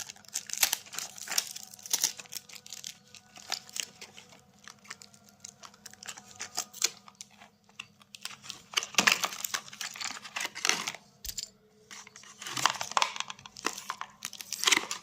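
Packaging being torn and opened by hand: crinkling and tearing of cardboard and plastic wrap, in irregular bursts that are busiest around the middle and near the end.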